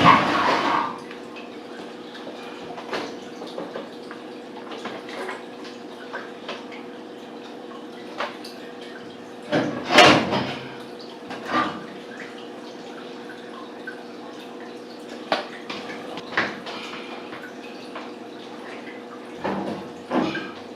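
Washing machine running with a steady hum and water dripping, broken by occasional knocks and clunks, the loudest about halfway through.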